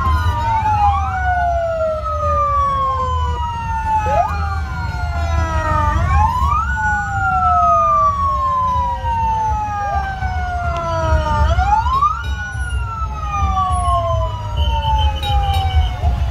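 Several fire-truck sirens wailing at once and out of step, each tone rising quickly and then falling slowly over several seconds, over a steady low rumble.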